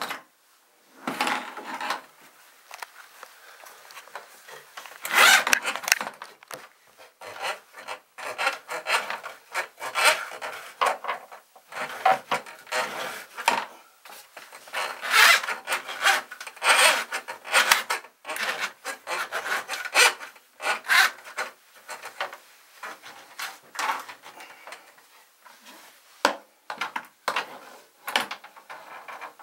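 Hand-crank drum drain auger being worked: its steel cable scrapes and rasps as it is fed and turned through the sink drain pipe, in irregular bursts about once or twice a second.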